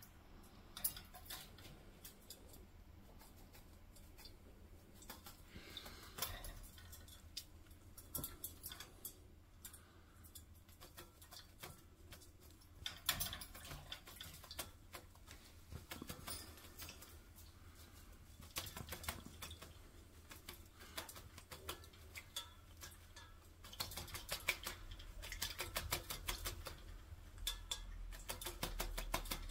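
Kakariki (New Zealand parakeet) bathing in a metal water bowl: bursts of splashing and wing-flapping, with water droplets pattering and ticking around the cage. The bursts come and go and are busiest near the end.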